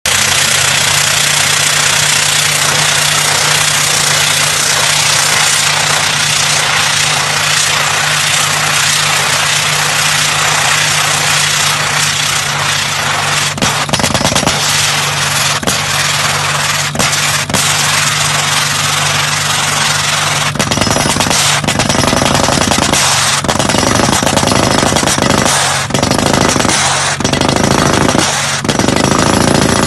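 Yonda YDR30A drill rig working: a steady engine hum under loud, rapid percussive hammering from the drill. From about two-thirds of the way in, the hammering comes in uneven stretches with short breaks.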